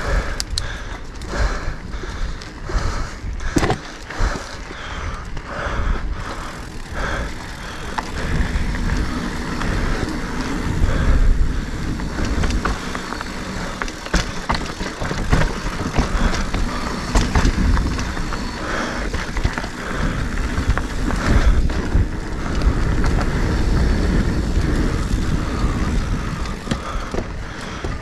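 Mountain bike being ridden along a dirt trail: a continuous rolling rumble of tyres and rattles from the bike over the bumps. Sharp clicks and knocks come in the first few seconds, and the rumble grows heavier after that.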